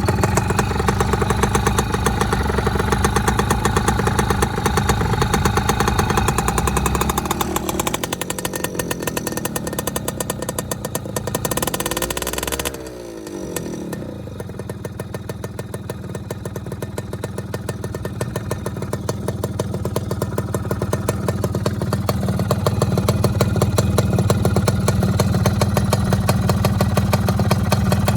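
Modified Yamaha F1ZR single-cylinder two-stroke engine running, blipped up and back down twice near the middle, the second time higher, then settling back to a steady idle that grows a little louder near the end.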